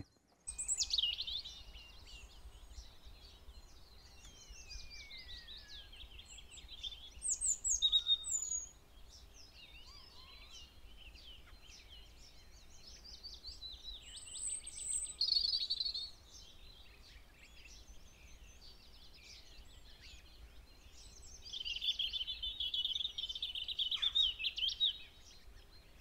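Small garden songbirds singing: bursts of rapid high trills and chirps every few seconds, the longest trill near the end.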